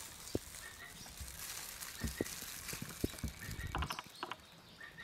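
Hands in plastic gloves handling a cabbage-leaf wrap and dipping it into a bowl of sauce: a run of short clicks, taps and soft rustles, busiest in the middle of the stretch. Faint short bird chirps sound now and then in the background.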